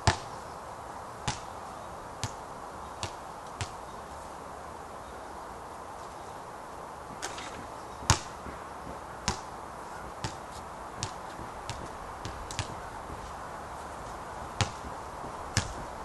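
A basketball bouncing on a hard outdoor court, each run of bounces coming quicker and quicker as the ball settles: a sharp bounce at the start with four faster ones after it, a louder hit about eight seconds in followed by another quickening run, and two single bounces near the end. A steady low hiss lies under it throughout.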